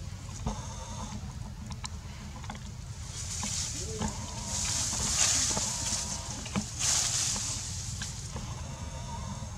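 Bamboo leaves and branches rustling, loudest for a few seconds in the middle, with a few sharp snaps or knocks, over a steady low rumble.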